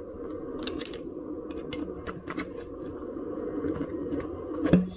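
Plastic tyre levers and tools being picked up and handled: scattered light clicks and scrapes, with a sharper knock near the end, over a steady low hum.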